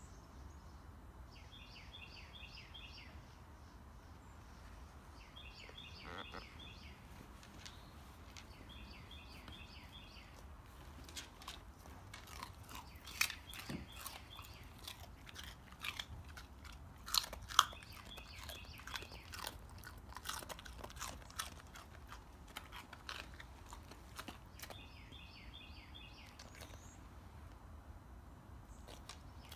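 A corgi crunching and chewing a raw carrot, with a run of sharp crunches through the middle, loudest about 13 and 17 seconds in. A bird repeats a short chirping phrase every few seconds.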